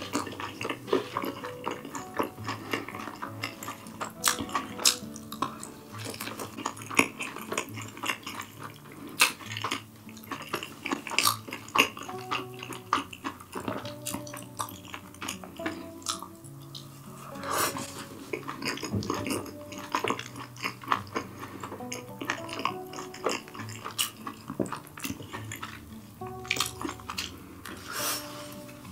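Metal cutlery clicking and scraping against dishes and takeout containers, with close-miked eating sounds, over quiet background music.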